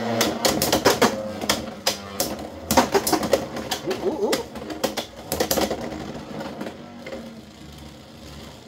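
Two Beyblade X spinning tops, Phoenix Feather and Hells Chain, spinning and clashing in a plastic stadium: rapid clattering clicks and knocks. The clatter is loudest in the first half and dies away as the tops slow down.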